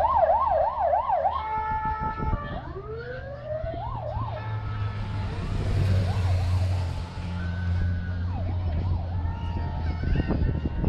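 Police motorcycle sirens: a rising wail switching to a fast yelp at the start, then another wail and brief yelp a few seconds in, with fainter yelps after, over a steady low drone.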